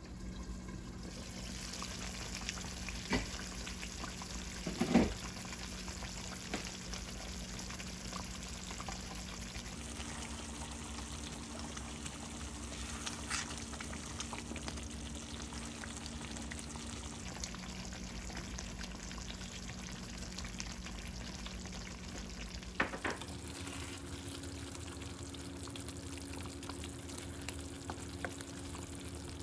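Eggplant masala sizzling in a pan, a steady frying hiss with a few short clinks of a utensil against the pan.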